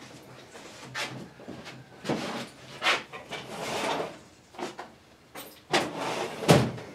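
About eight short bursts of hissing and rustling, one longer hiss in the middle, the loudest near the end: air being blown through a small-engine carburetor to check whether it holds pressure.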